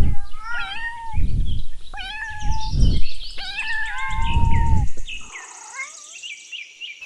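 Kitten mewing: a string of short, high mews, some overlapping, over low rumbling handling noise. The mews stop about five seconds in.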